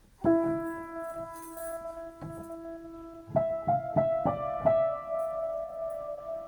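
Piano played slowly: a note struck about a third of a second in and left to ring, then several more notes struck between about three and five seconds in, each sustained and fading.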